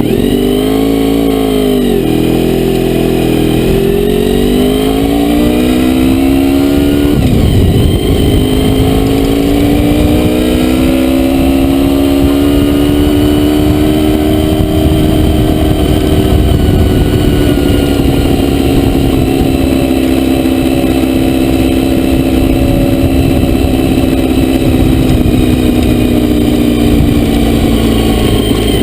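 Honda VFR400R's V4 engine running under way: revs climb over the first seven seconds, drop sharply about seven seconds in as at a gear change, then rise slightly and slowly ease off.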